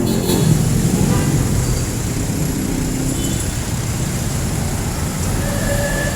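Busy street traffic dominated by jeepney engines running, a steady low noise with no break.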